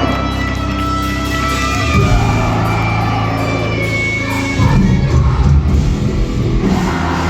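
Post-hardcore band playing live at full volume, heavy guitars and bass holding long chords with sung and shouted vocals. The chords change about two seconds in, and the playing hits harder just past halfway.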